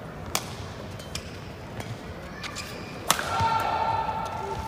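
Badminton racket strikes on a shuttlecock during a rally: several sharp cracks about a second apart, the loudest about three seconds in. A high, steady-pitched squeal follows it and lasts about a second and a half.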